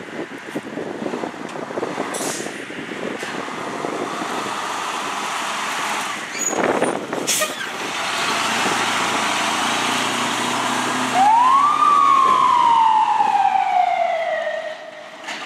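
Fire rescue truck's engine running as it pulls out and drives past, getting louder toward the middle, with a brief sharp noise about seven seconds in. About eleven seconds in, its siren sounds once, rising quickly and then falling slowly.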